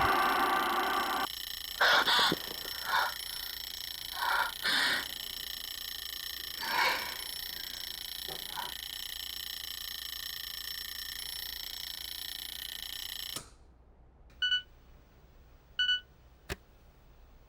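Sustained eerie horror-score drone with several sharp stabs, cutting off suddenly about thirteen seconds in. Then two short electronic beeps about a second and a half apart, and a single click.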